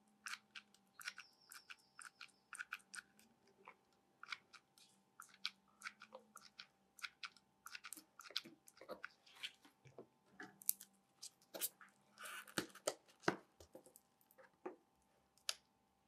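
Small clicks and crackles, a few a second, from a mini hot glue gun worked against a thin plate being glued to a faux-stone surface, with a short scraping rustle about twelve seconds in.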